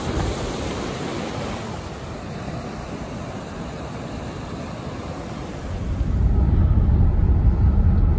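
Mountain stream or waterfall rushing, a steady wash of noise. About six seconds in it gives way to a heavy low rumble.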